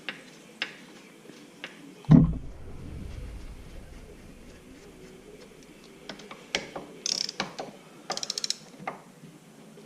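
Ratchet wrench working on the bolts of a Ford 9-inch differential third member: scattered metal clicks and tool clatter, a heavy knock about two seconds in, and a quick run of ratchet clicks near the end.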